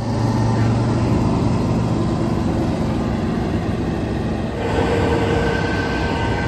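Fendt tractor running steadily under load, pulling a Dewulf Certa 40 combination potato planter with its tiller through the soil. About two-thirds of the way in, the sound changes to the planter's own machinery up close, with several steady higher whining tones over the running noise.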